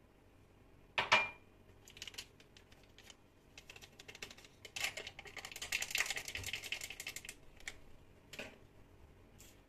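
Small paper sachet of vanilla being torn open and handled over a glass bowl. A sharp clink with a short ring comes about a second in, then crinkling and crackling, densest around the middle.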